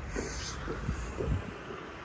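Outdoor street background: a steady low rumble with a few faint soft thuds.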